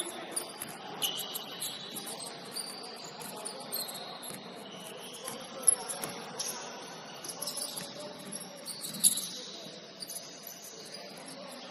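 Basketball shoes squeaking on a gym floor in short scattered chirps over the hum of the hall, with two sharp knocks about six and nine seconds in.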